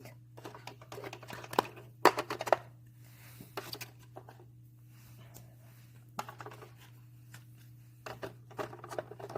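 Plastic stationery being handled and set into a plastic pencil case: irregular clicks and clatters in several short clusters, over a steady low hum.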